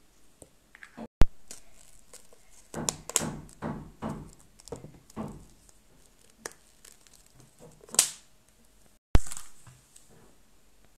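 Handling noise of plastic surprise-egg shells and cellophane candy wrappers: scattered short rustles and light knocks, with two sharp clicks, one about a second in and one near the end.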